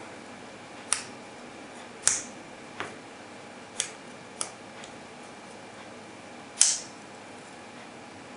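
Gerber Dime multi-tool being folded shut: a series of sharp metal clicks as its tools snap back into the handle, about seven spread over several seconds, the loudest one near the end.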